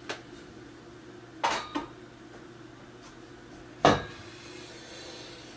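Metal storage-rack parts being handled and set down: a faint click, a pair of light clinks, then one sharp metallic knock near the middle with a short ring after it.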